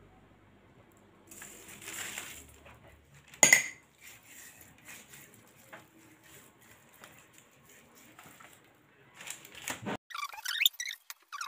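Hands oiling and salting raw lamb shanks on a parchment-lined baking tray: soft rustling of the paper and scattered light ticks, with one sharp clink about three and a half seconds in. Near the end comes a run of short squeaky rubbing sounds.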